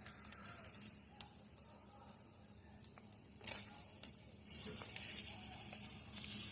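Faint sizzling from a hot cast-iron skillet, growing louder about four and a half seconds in, with one brief scraping sound a little past three seconds.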